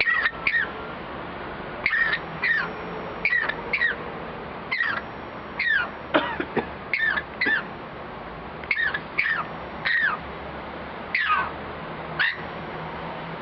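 Pet bird imitating a human cough: short cough-like calls, often in pairs, repeated about once a second, each falling in pitch.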